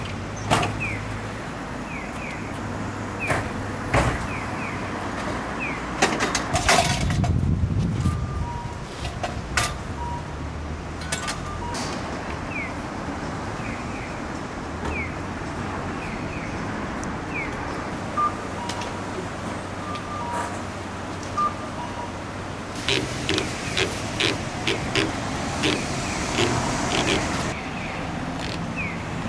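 Stainless-steel panels, latches and fittings of a kei-truck food stall being opened and set up: scattered knocks and clicks, a louder clatter about seven seconds in, and a quick run of clicks near the end. Under it runs a steady low hum, with faint short chirps repeating through the first twelve seconds or so.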